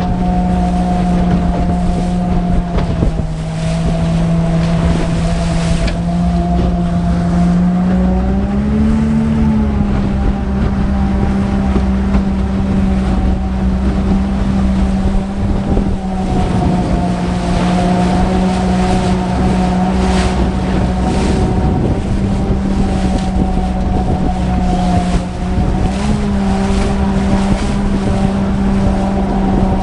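Electric motors of a radio-controlled craft running with a steady hum, the pitch stepping down and up a few times with throttle, over wind noise on the microphone.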